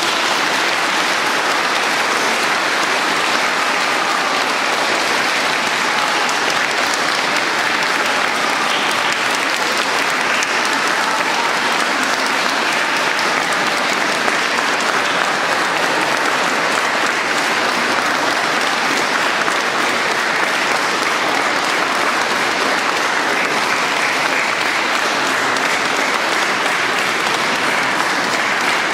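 Audience applauding steadily after a choir song.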